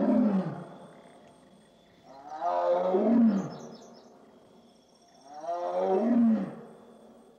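A tiger roaring three times, about three seconds apart, each roar falling in pitch as it fades.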